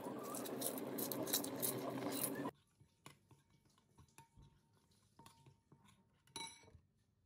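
Water splashing from a hand into a ceramic bowl, an even spattering that cuts off abruptly about two and a half seconds in. Then a metal spoon stirs a thick paste in the bowl, with faint scrapes and a few light ringing clinks against the ceramic, the loudest near the end.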